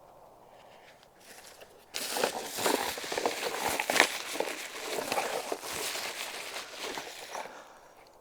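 Tent fabric rustling and crinkling as the tent is handled, a dense crackle with many small clicks that starts about two seconds in and fades near the end.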